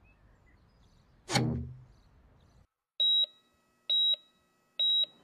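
Cartoon heart monitor beeping three times, each a short high beep just under a second apart. About a second in, a short sound slides quickly down in pitch.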